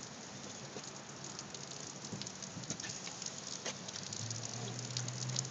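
Rain pattering, an even hiss with scattered drips and ticks. A low steady hum joins it about four seconds in.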